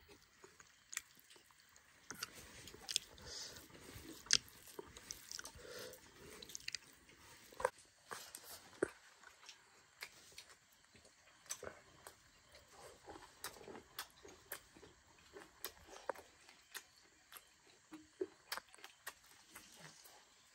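A person chewing and biting a mouthful of chicken curry and rice, eaten by hand, with many irregular sharp mouth clicks.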